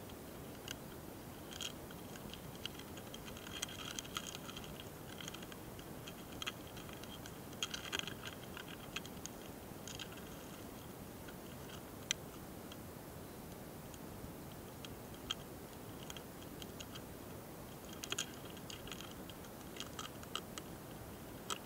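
A mating pair of small hosotora-kamikiri longhorn beetles, recorded very close: faint, irregular clicks and scratches in clusters, with one sharper tick near the middle, over a steady hiss.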